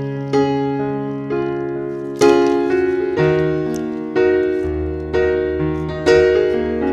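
Piano or electric-piano music: a slow sequence of struck chords, each ringing and fading before the next, about one to two a second.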